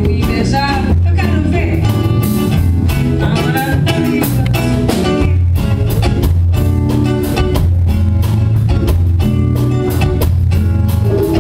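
Live band music with a strong bass line and a steady beat.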